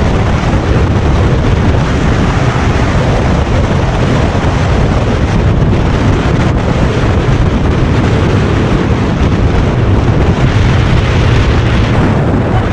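Steady wind rush over a GoPro's microphone on a motorcycle at highway speed, with the motorcycle's engine and tyre noise as a low rumble beneath.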